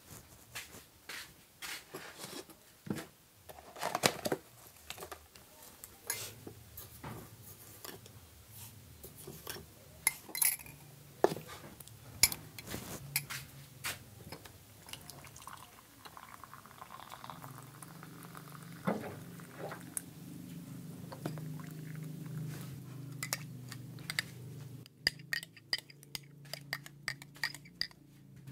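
Metal pots and kitchen utensils clinking and knocking again and again. A steady low hum comes in about halfway, and a quick regular run of clicks follows near the end.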